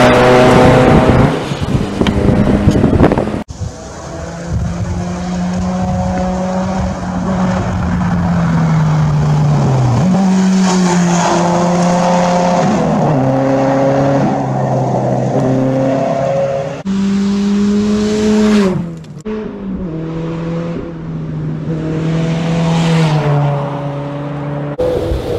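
Rally cars driven hard on gravel, engines falling in pitch on the brakes and jumping back up through gear changes as they power through corners, with tyres spraying gravel. Several passes follow one another, and the sound changes abruptly at each switch.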